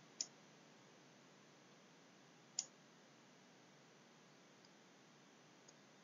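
Near silence with two faint, short clicks about two and a half seconds apart.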